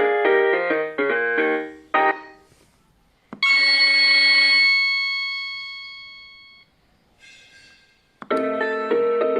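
Built-in ringtones of a ZTE T-U110 mobile phone played one after another. A fast, keyboard-like melody ends about two seconds in. After a short pause, a single bright chime rings and fades away over about three seconds, and another melody begins near the end.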